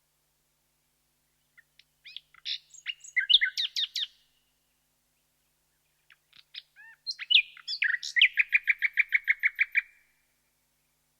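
Common nightingale singing: two separate song phrases of quick, varied whistled notes with a pause between, the second ending in a rapid run of repeated notes, about eight a second.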